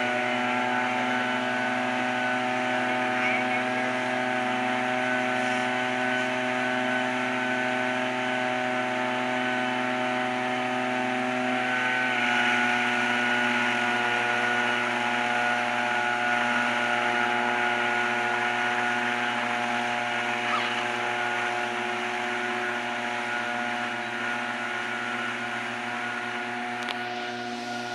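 Small engine of a tea harvester running steadily, its pitch shifting slightly about twelve seconds in.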